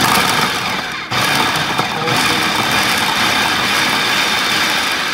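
Electric food processor motor running with its blade spinning, chopping tomato, onion, habanero and garlic. It starts abruptly, eases briefly about a second in, then runs on steadily.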